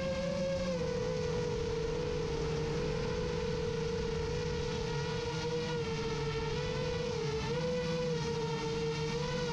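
Brushless motors and propellers of an iFlight Chimera 7 long-range FPV quadcopter whining steadily in flight, the pitch dipping and rising slightly with throttle changes.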